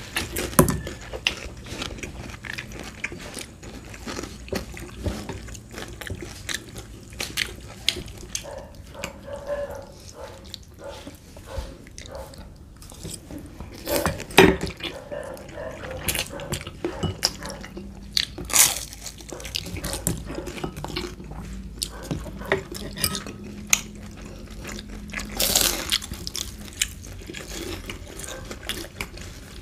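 Close-up eating sounds: spaghetti being slurped and chewed, crisp spring rolls bitten, and forks clicking against plates, in many short sharp clicks with a few louder knocks.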